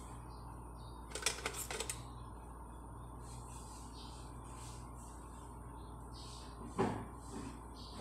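Quiet kitchen handling sounds: a quick run of clicks about a second in and a single knock near the end, over a steady low hum.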